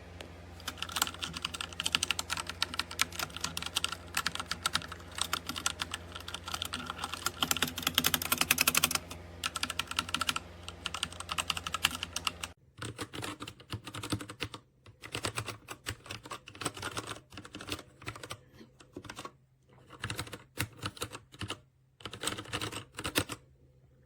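Typing on a TMKB T68SE 60% mechanical keyboard: a fast, continuous run of keystroke clicks. About halfway through the background hum changes abruptly, and the typing goes on in shorter bursts with brief pauses.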